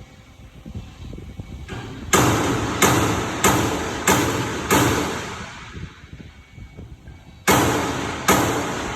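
A series of loud, sharp knocks, each ringing briefly. Five come in an even run about two seconds in, roughly one every two-thirds of a second, and two more follow near the end.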